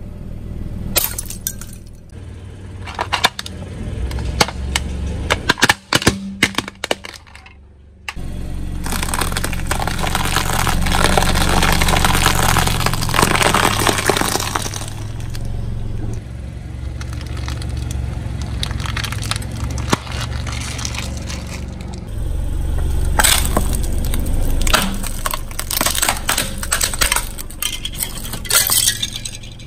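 Brittle objects cracking and breaking under a car tyre: clusters of sharp cracks and snaps in the first several seconds and again near the end, with a steady low rumble of the car in between.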